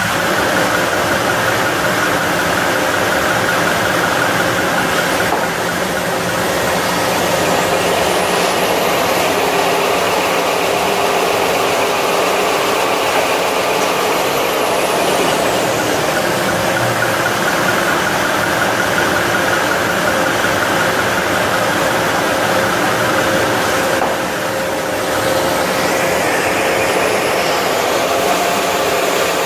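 Automatic toilet-paper band saw cutting machine running, a loud steady mechanical noise with a constant hum, dipping briefly about three quarters of the way through.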